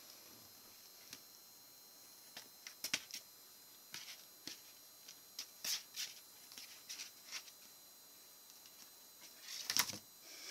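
Kittens' claws scratching and scrabbling on a cardboard box and a blanket as they wrestle and climb the box wall: faint, irregular scratches and clicks, with a louder flurry near the end.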